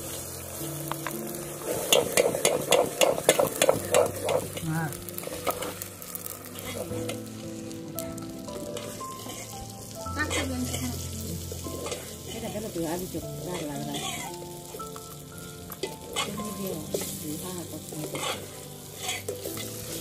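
Onions and ginger-garlic paste sizzling in hot mustard oil, stirred and scraped round the pan with repeated strokes.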